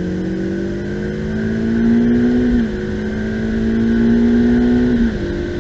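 Ferrari F8 Tributo's 3.9-litre twin-turbo V8 pulling at full throttle, its pitch climbing steadily. The pitch drops sharply twice, about two and a half seconds in and near the end, as it shifts up a gear, then climbs again.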